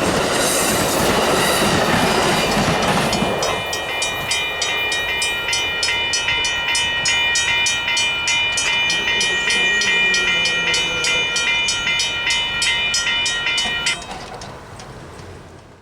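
Amtrak passenger train rolling through the crossing with a loud roar and wheel clatter that falls away after the first few seconds. Over it, the railroad crossing bell rings in a steady, even rhythm of about three strikes a second, then stops near the end as the signals shut off.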